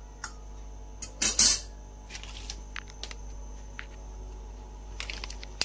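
A metal spoon clinking and scraping against a large aluminium cooking pot of simmering milk: one longer scrape about a second in, then a few light taps, over a steady low hum.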